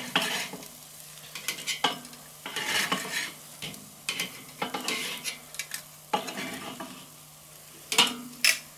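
Metal grill tongs clicking and scraping against the cooking grate of a Weber charcoal kettle grill as bacon-wrapped spring rolls are picked up and turned, with several sharp clicks spread through, over the bacon sizzling.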